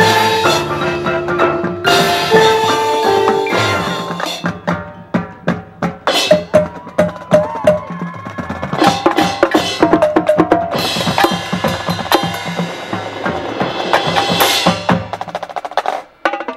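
High school marching band playing live: held notes for the first few seconds, then a stretch led by percussion, with drums and mallet strikes, before the full band builds back up and breaks off briefly near the end.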